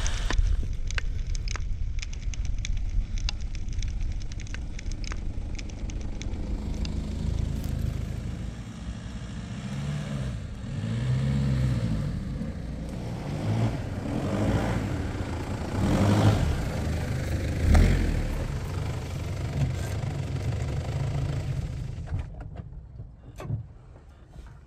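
A 4x4 SUV engine running as it drives slowly over leaf-littered forest ground, with revs rising and falling, and crackles from twigs and leaves under the tyres. The sound dies down near the end as the vehicle stops.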